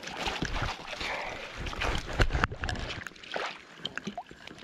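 Lake water sloshing and splashing around a landing net holding a netted trout beside a float tube, with scattered small knocks of the net and gear being handled and a low rumble about two seconds in.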